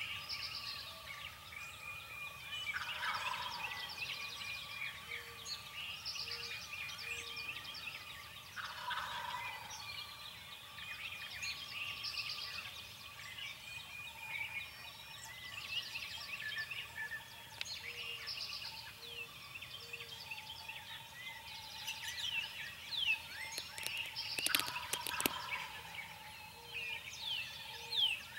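Wild turkey gobbling several times, with songbirds chirping and singing throughout.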